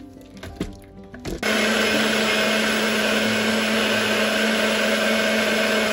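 Single-serve personal blender switched on, starting abruptly about a second and a half in and running steadily at full speed with a constant hum under loud whirring, blending ice, leafy greens and fruit into a smoothie.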